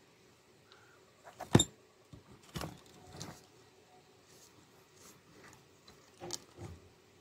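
Quail moving about a wire cage: a few sharp knocks and scrapes on the cage and mesh floor, the loudest about a second and a half in, and another pair near the end.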